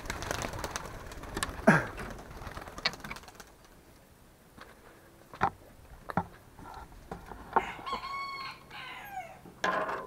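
A rooster crowing once, about eight seconds in: one long call that drops in pitch at its end. Before it come a few sharp knocks and rustles.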